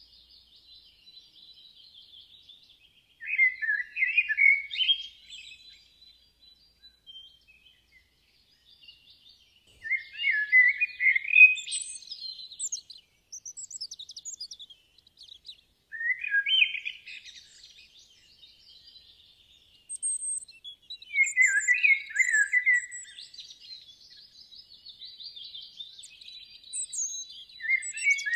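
Wild bird singing, with a warbled phrase of about two seconds repeated five times, five to six seconds apart. Fainter, thin high twittering from other birds fills the gaps.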